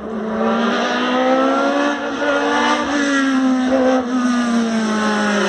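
Hillclimb race car's engine running hard at high revs, its note rising slowly and then falling away, with brief dips in level about two and four seconds in.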